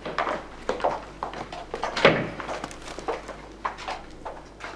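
Footsteps of shoes on a hard corridor floor, about three or four irregular knocks a second, with one louder thump about two seconds in.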